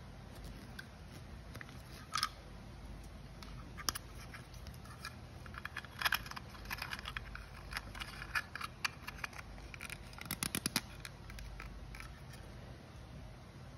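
Scattered small clicks, crackles and scrapes of something being handled, thickest in the middle, over a low steady hum.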